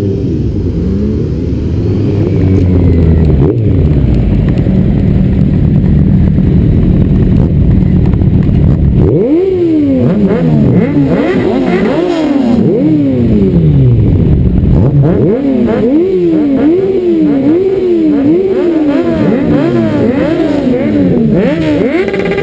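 Sport motorcycle engines idling in a group at a standstill, then from about nine seconds in being revved over and over, with quick throttle blips rising and falling about once a second.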